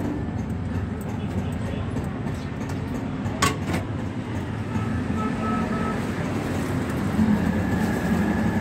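Steady street-side traffic rumble, with two sharp clicks in quick succession about three and a half seconds in.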